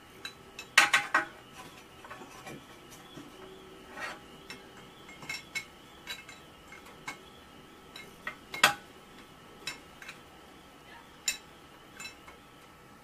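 Metal tools clinking and tapping against the oil-cooler pipe fittings on a motorcycle engine as they are worked tight. These are scattered sharp clicks, loudest about a second in and again twice in the last third.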